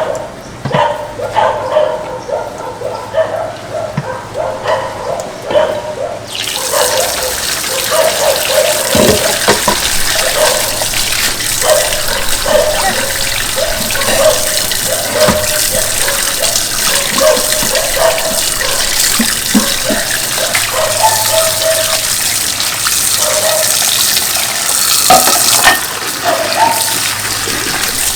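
Kitchen tap running into a sink while dishes are washed. The water comes on suddenly about six seconds in as a steady hiss.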